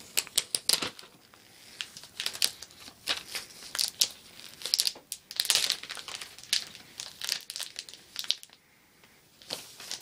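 Clear protective plastic film being peeled off an iPad 2 and crumpled: a run of irregular crinkling crackles and rustles that goes quiet for a moment near the end.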